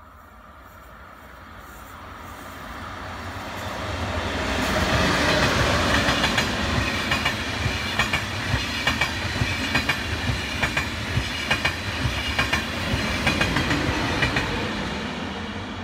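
Double-deck TGV high-speed train approaching and passing: a rush of wheel and air noise builds over the first few seconds. It then carries sharp wheel clacks at about two a second as the bogies roll by, and fades near the end as the train draws away.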